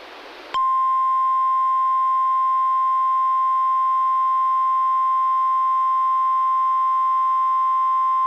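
NOAA Weather Radio warning alarm tone, a single steady 1050 Hz tone. It begins about half a second in, after a brief hiss of radio static, and holds unbroken. It is sounded as the weekly test of the tone that automatically switches on weather alert radios.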